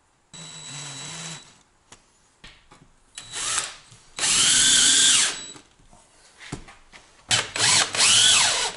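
DeWalt cordless drill driving structural screws through the inverter mounting brackets into the wall studs, in four separate runs. The motor's whine rises and falls in pitch as each screw goes in; the longest and loudest run lasts about a second, in the middle.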